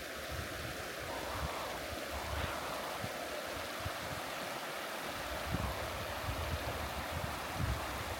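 Wind buffeting the microphone in irregular low gusts over a steady rushing hiss, the gusts coming more often in the second half.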